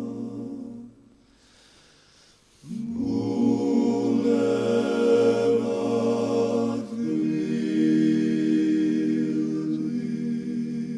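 Georgian male vocal ensemble singing a cappella in close polyphony: a held chord fades out about a second in, and after a short pause the voices come back in with long sustained chords, the harmony shifting about seven seconds in.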